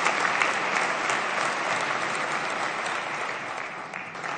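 A large audience of deputies applauding, the clapping thinning and fading gradually toward the end.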